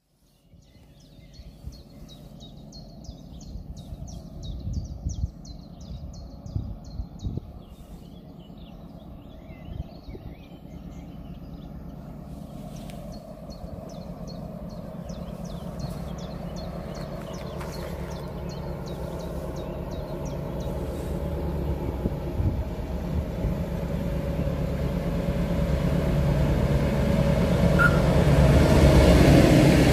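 NOHAB-built DSB class MY diesel-electric locomotive approaching with a train of carriages. Its engine drone grows steadily louder until it passes close near the end. Small birds chirp in quick repeated trills during the first two-thirds.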